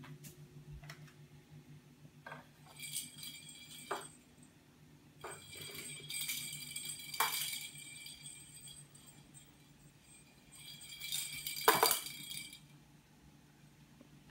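A small bell jingling in three bursts as a kitten bats and chases a small toy ball across a hard floor, with several sharp knocks of the ball or paws hitting things; the loudest knock comes near the end of the third burst. A steady low hum runs underneath.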